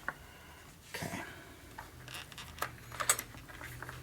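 A few small, sharp clicks and taps of plastic and rubber parts being handled as the fuel pump controller is worked into its receptacle under the rubber cover, the sharpest about three seconds in, over a faint low hum.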